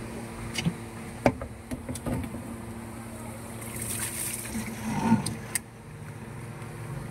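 Water from a hose splashing over stacked 20-litre plastic water jars, with a hiss of spray about four seconds in and a few hollow knocks of the jars, over a steady machine hum.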